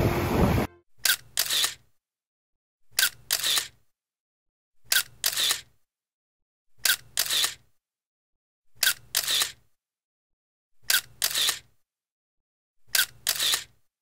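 Camera shutter sound, a sharp click followed by a longer snap, repeated seven times about every two seconds with dead silence between.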